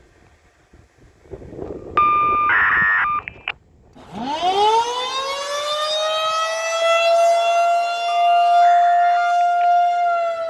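Radio activation tones sound in short steady steps for about a second and a half. Then an outdoor warning siren winds up from a low pitch to a steady wail and begins to wind down near the end. Another short burst of activation tones plays over the siren partway through.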